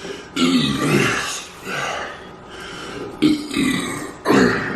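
A man burping several times in a row, belching up gas from the carbonated soda he has been drinking.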